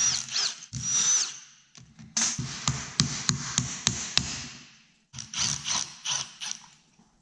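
Milwaukee Fuel cordless drill-driver running in several short bursts as it spins bolts out of a snowmobile's two-stroke twin engine, with sharp clicks in the middle burst.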